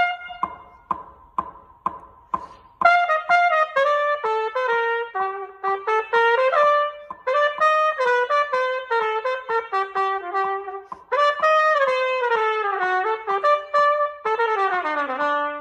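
Solo trumpet playing unaccompanied: short, separated notes for the first few seconds, then a connected melody with several falling runs, ending on a low held note.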